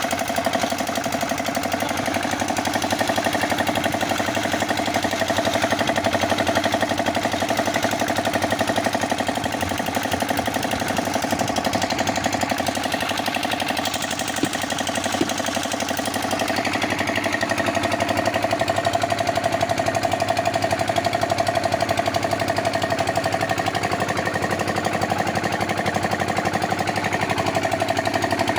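Concrete mixer running steadily under power, its engine giving a rapid, even knocking beat, with a brief dip in level about halfway through.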